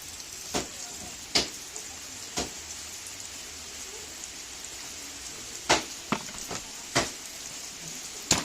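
Steady hiss of rain with several sharp, separate knocks scattered through it.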